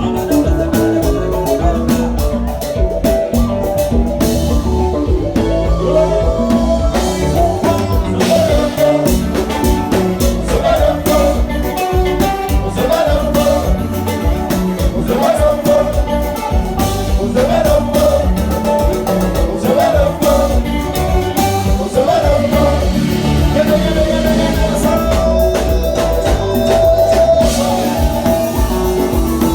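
Music with singing over a steady beat, with drums, bass and guitar.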